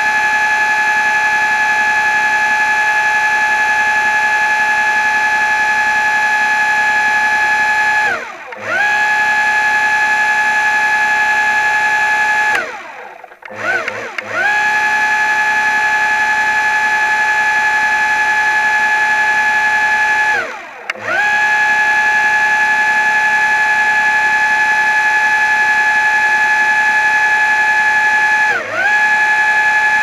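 Underwater scooter (diver propulsion vehicle) electric motor whining at a steady high pitch. Four times the whine sags in pitch and cuts out briefly, then winds back up to speed. The longest dropout is about 13 seconds in.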